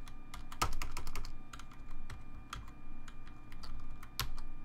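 Typing on a computer keyboard: an irregular run of quick key clicks, a few of them louder.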